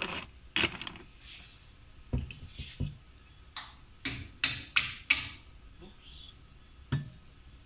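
Crinkling of a plastic bag and walnuts knocking together as walnuts are picked out, then two dull thuds and a quick run of sharp clicks and knocks as hard objects are handled on a desk, with one more click near the end.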